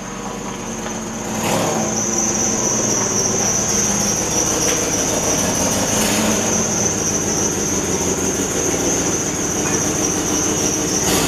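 A 5.3-litre V8 pickup engine running, with a steady high-pitched squeal over it from an exhaust leak where a tape patch on the muffler has given way.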